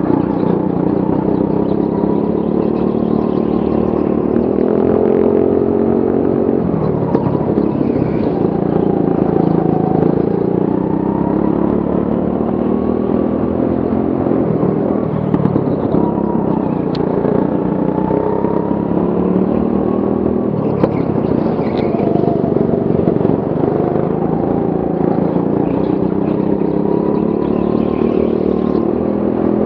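Go-kart engine heard from the driver's seat during a race, its pitch climbing and falling again and again as the kart speeds up and slows into corners, with a few brief knocks.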